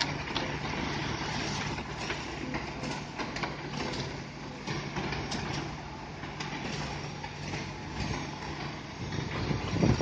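Diesel engine of a Hino Ranger concrete mixer truck running steadily while the drum turns and discharges concrete down the chute, with a constant rattling clatter. It grows louder near the end.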